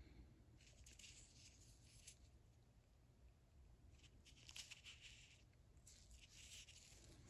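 Near silence, with faint rustling handling noises three times, as small ratchet parts are moved about by hand.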